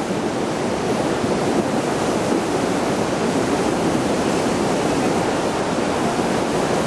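River in flood, its swollen, muddy water rushing steadily under and past a bridge.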